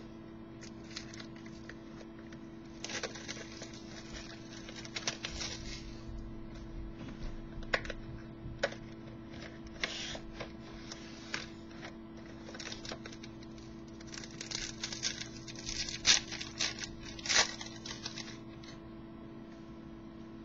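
A hockey card box and pack being opened by hand: intermittent tearing, rustling and crinkling of wrapper and cardboard, with small clicks of cards being handled. A steady low electrical hum sits underneath.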